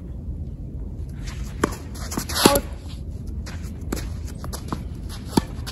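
Tennis ball being hit by rackets and bouncing on the court during a rally: several sharp pops about a second apart, the loudest about two and a half seconds in, with shoe scuffs on the court surface.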